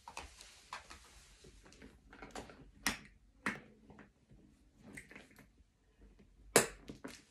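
Handling noise from a phone camera being turned around and repositioned: scattered irregular taps, rustles and knocks, the loudest a sharp knock about six and a half seconds in.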